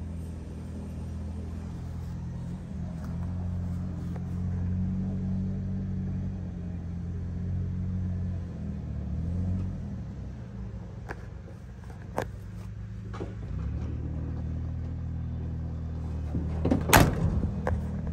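1989 GMC Topkick truck's engine idling steadily, with a few light clicks in the middle. Near the end the cab door slams shut once.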